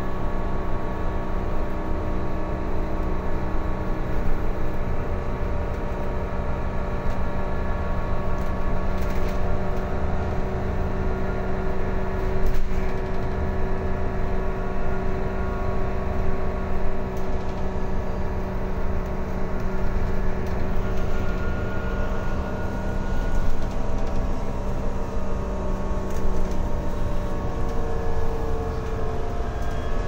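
Interior sound of a Mercedes-Benz OC500LE bus under way: a steady drone from the engine, drivetrain and air-conditioning over road rumble. There is a single sharp click about halfway, and one tone rises near the end.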